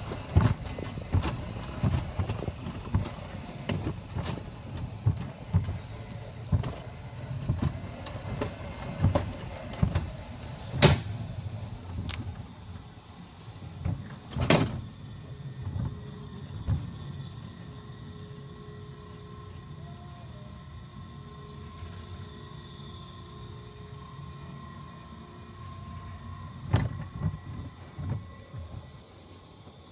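Bobsled car running down steel tube rails, its wheels rumbling and thumping unevenly at speed, with two sharp knocks. About halfway through the ride turns slow and quiet, leaving a steady high insect buzz.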